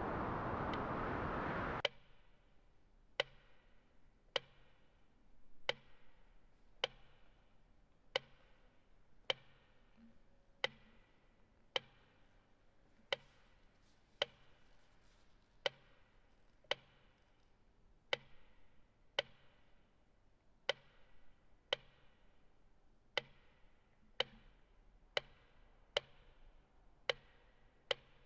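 A loud rush of noise cuts off abruptly about two seconds in. Then come sharp, ticking clicks at a slow, even pace, about one every 1.2 seconds, each with a short ringing tail.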